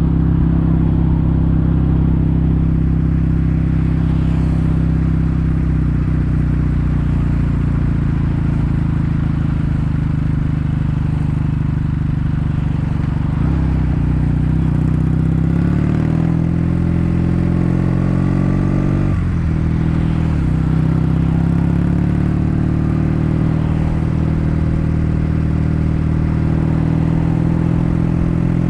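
Kawasaki W800's air-cooled parallel-twin engine running through stainless-steel Cabton-style silencers while riding. The steady exhaust note changes pitch a few times around the middle, with a short break at one point, as the rider shifts gears and changes speed.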